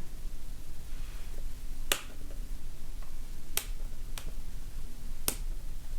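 Four sharp little clicks, spaced a second or two apart, from a spudger prying at the flex-cable connectors inside an iPhone X during screen removal.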